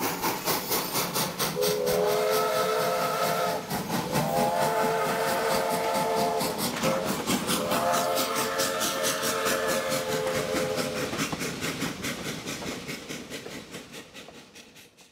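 Steam locomotive #14 working with a steady beat of exhaust chuffs, its whistle sounding three long blasts, the last the longest; the sound fades away near the end.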